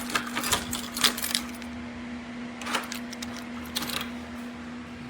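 Metal door lock parts and keys clinking and clicking as they are handled. There is a cluster of clinks in the first second and a half, then two more brief groups of clinks, all over a steady low hum.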